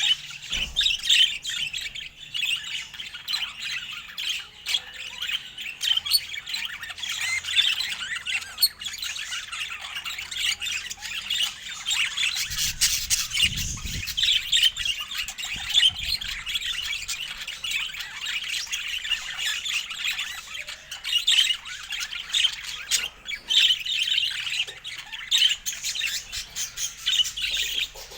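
Budgerigars chirping and chattering without a break, dense and high-pitched, with a brief low rumble about halfway through.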